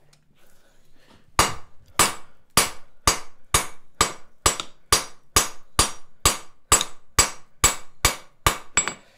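Hand hammer striking a glowing steel bar on an anvil: about seventeen blows in a steady rhythm of roughly two a second, each with a short metallic ring, starting about a second and a half in.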